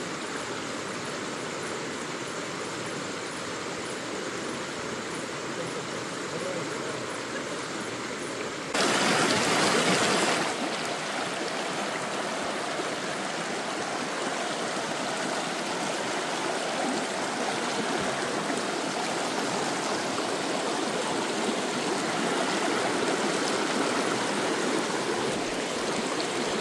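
Shallow river rushing over rocks, a steady rush of flowing water. About nine seconds in it turns louder for a couple of seconds, then carries on, slowly growing louder toward the end.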